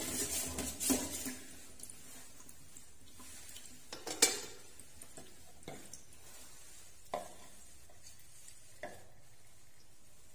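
Kitchen utensils and dishes being handled: a cluster of knocks and clatter in the first second or so, one sharp loud click about four seconds in, then a few lighter clicks.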